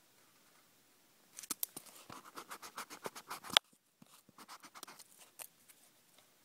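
A marker scratching on notebook paper in quick back-and-forth strokes, about five a second, ending in a sharp click. After a short pause comes a second, fainter run of strokes.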